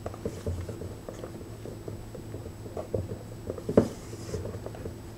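Rubber spatula folding stiff beaten egg whites through a thick eggnog mixture in a stainless steel bowl: soft squishing and light scraping with scattered small clicks, and a sharper knock against the bowl about four seconds in.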